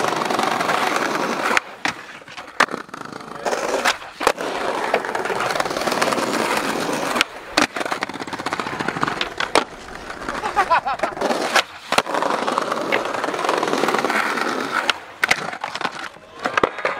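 Skateboard wheels rolling over tiled paving, broken by about a dozen sharp wooden clacks from tail pops and landings. A stretch of the board sliding along the top of a brick ledge comes partway through.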